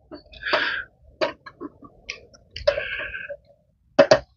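Protective plastic film being peeled off a new folding camping table: short crinkling rustles, one about half a second in and a longer one near three seconds, among scattered clicks of the film and table being handled.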